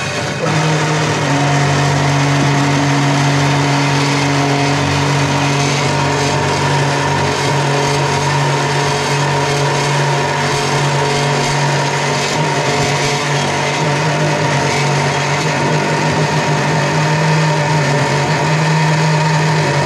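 Metal-cutting circular cold saw running and cutting through a steel bar clamped in its vise: a steady, a bit loud motor hum with a steady high ring from the blade in the cut, starting about half a second in. The blade is cutting well.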